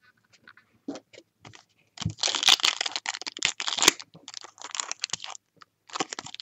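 Clear plastic wrapper of a trading-card pack crinkling loudly as it is handled and torn open by hand, starting about two seconds in after a few faint clicks.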